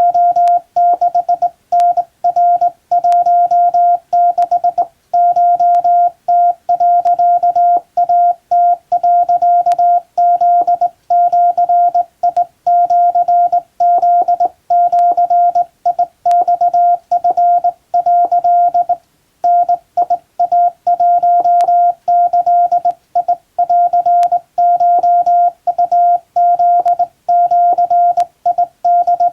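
Morse code hand-sent on a Japan Radio Co. straight telegraph key: a steady tone of about 700 Hz keyed into irregular dots and dashes, at hand-keying speed, with a gap of about a second past the middle.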